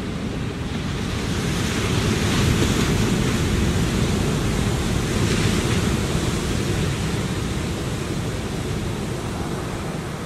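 Ocean surf breaking and washing up a sandy beach, a steady rush that swells about two seconds in and slowly fades toward the end.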